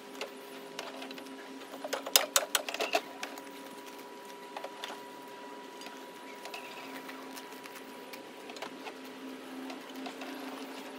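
Electric bleach pump running with a steady hum. About two seconds in, a quick run of clicks and knocks comes from the hose reel as the pressure-washing hose is pulled off it.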